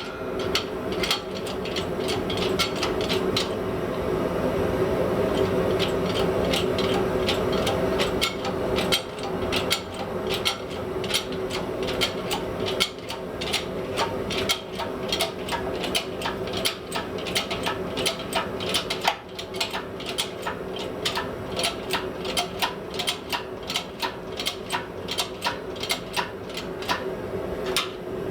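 Blacksmith's shop with a forge running as a steady hum, overlaid by many irregular sharp ticks and light taps, roughly two or three a second.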